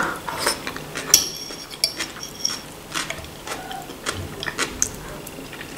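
Metal fork clinking and scraping against a ceramic plate in a string of short, irregular clinks, a few of them ringing briefly, with chewing in between.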